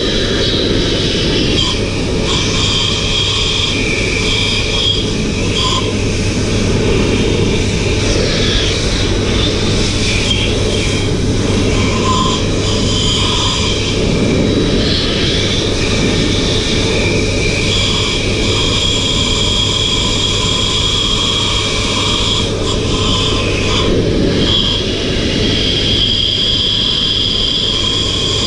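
Electric blower running steadily, its motor whining high over a low hum as air rushes out through its hose and the paint spray gun held against it.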